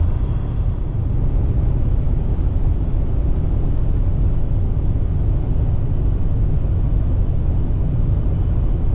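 A truck driving at highway speed: a steady, loud low rumble of road and engine noise that does not change.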